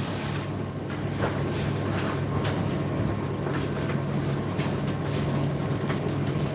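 Indesit IDC8T3 condenser tumble dryer running: a steady hum and rumble of the turning drum, with a few faint light knocks.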